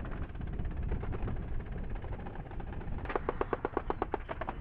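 A low steady rumble, then about three seconds in a rapid burst of automatic gunfire, about eight shots a second for a second and a half, from a truck-mounted gun.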